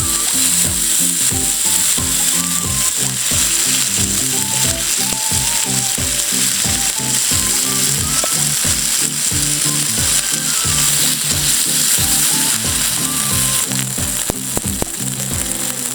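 Background music with a melody and a steady beat, over a steady sizzling hiss like food frying.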